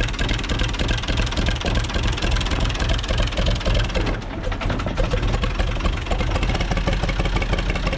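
UTB 445 tractor's diesel engine running steadily as the tractor pulls away slowly in gear, the clutch being let out gently.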